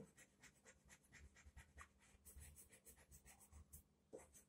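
Faint scratching of a colored pencil on paper in quick, repeated shading strokes.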